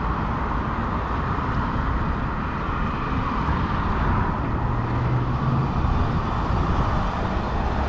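Gasoline pump nozzle dispensing fuel into a car's tank, the flow eased down to a slow top-off near a set amount, under steady wind noise on the microphone and passing traffic.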